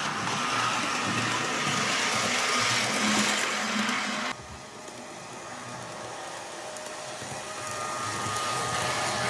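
Model DMU running around the layout: its small electric motor whirring as the wheels roll along the track. The level drops suddenly about four seconds in, then slowly grows as the train comes nearer.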